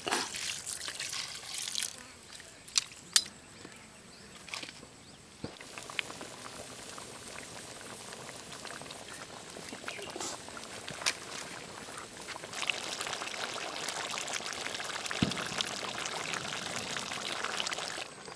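Water poured into a large pan of pork curry, splashing onto the meat for the first couple of seconds, with a couple of knocks soon after. Then the curry, covered in water, bubbles steadily on the boil, a little louder in the second half.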